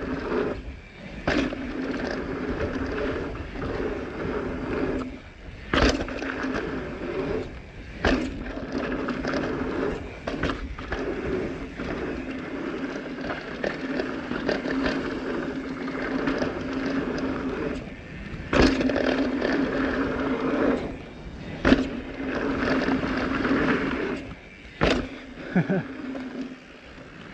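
Transition Smuggler full-suspension mountain bike riding fast down a dirt jump trail: tyres rolling over dirt under a steady buzz from the bike. Several sharp thuds of jump landings and cased jumps break in, with the suspension bottoming out.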